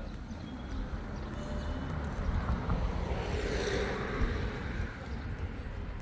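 A vehicle passing, its noise swelling to a peak about three and a half seconds in and then fading, over a steady low rumble of wind on the microphone.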